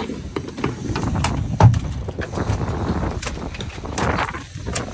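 Sportfishing boat at sea: a low rumble with scattered knocks and clicks, the loudest a thump about a second and a half in.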